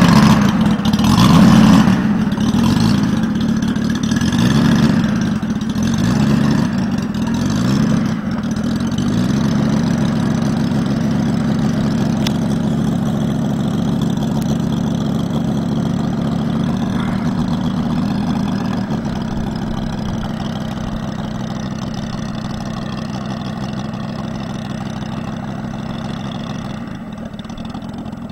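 Moki 250 cc radial engine of a large radio-controlled FW 190 model, revved up and down several times in the first few seconds and then running steadily at low throttle as the model taxis. It grows fainter near the end as the model moves away.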